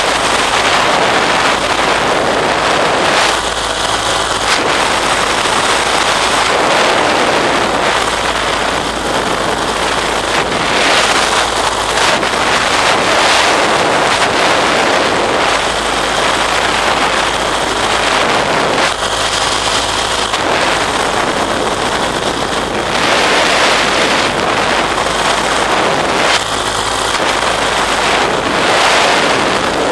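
Heavy wind rushing and buffeting over the microphone of a camera in flight, a loud steady roar that swells and eases. A faint pitched hum shows through for a second or two at a few points.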